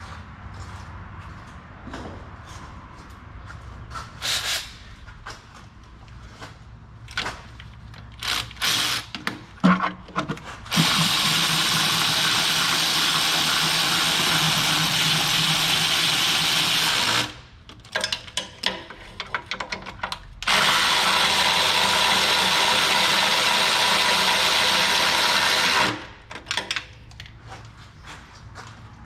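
Electric ratchet running in two long spells of about six and five seconds, driving in the new starter motor's mounting bolts. Before that there are scattered clinks and knocks of tools and metal parts being handled.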